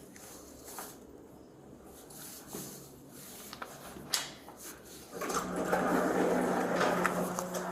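A few clicks and knocks, then about five seconds in an elevator starts moving with a steady low hum and a rushing noise.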